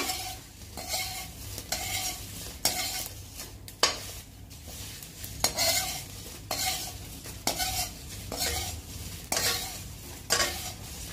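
A perforated metal slotted spoon scraping round an aluminium kadhai, about one stroke a second, tossing crisp-fried taro pieces to coat them in dry spices.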